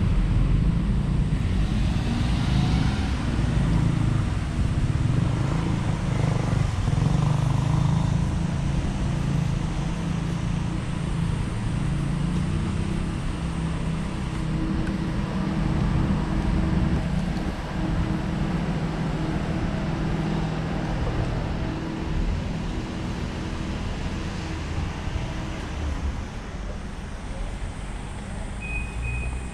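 Urban outdoor ambience of road traffic, with a steady low rumble that dominates throughout.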